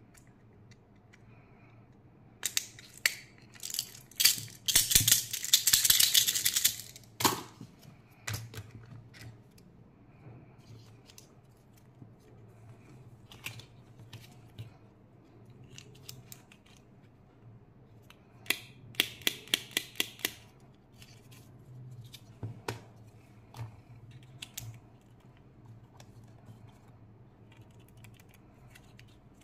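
Hands handling and opening small hard-plastic candy toys and capsules: scattered clicks and taps of plastic, with a dense crackling stretch about a fifth of the way in and a quick run of six or seven clicks about two-thirds of the way through.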